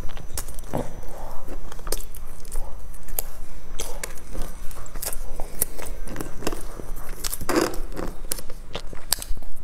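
Close-miked eating sounds: biting into and chewing soft bread rolls with a baked crust, with many short crackles and wet mouth clicks.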